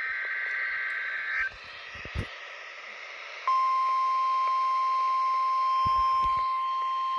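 NOAA Weather Radio sending its weekly test alert: a harsh burst of SAME digital header data cuts off about one and a half seconds in. After two seconds of radio hiss, the steady single-pitch 1050 Hz warning alarm tone comes on and holds.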